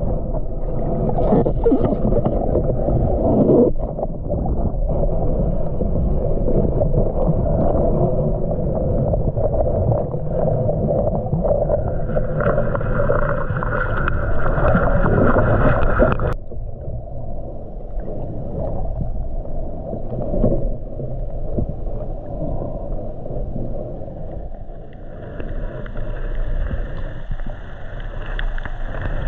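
Muffled underwater noise from a submerged camera: a steady low churning rumble of water moving around the housing. A higher hiss with a faint whine joins twice, once before the middle and again near the end, and the rumble drops off abruptly about halfway through.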